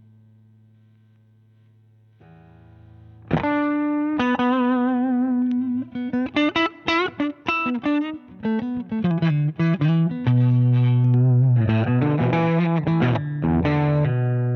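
Electric guitar played through a Danelectro Transparent Overdrive V2 pedal. A held note fades out, then a hard-picked note about three seconds in opens a lead phrase: single notes with vibrato and quick runs, ending in long ringing notes.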